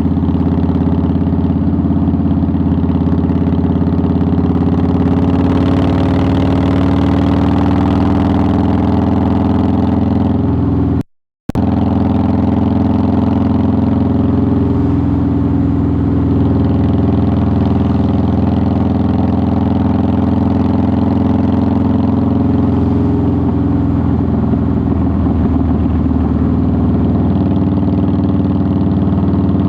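A 2009 Harley-Davidson Softail Deluxe's V-twin engine runs steadily at an even pace while riding. The sound cuts out completely for about half a second, roughly eleven seconds in, then resumes unchanged.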